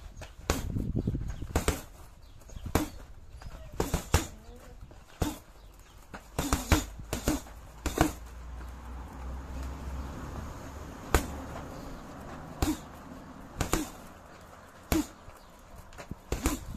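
Boxing gloves punching a heavy punching bag: single punches and quick two- or three-punch combinations, each a sharp thud, coming irregularly every second or two with a longer gap midway.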